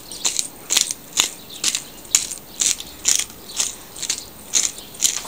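Twist-top black pepper grinder being turned, its grinding head crunching peppercorns in a regular ratcheting click about twice a second.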